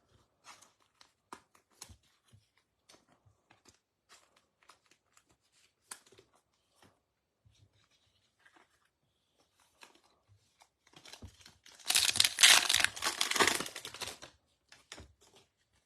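Faint scattered clicks and rustles of trading cards being handled, then a loud crinkling tear lasting about two seconds near the end as a foil trading-card pack wrapper is ripped open.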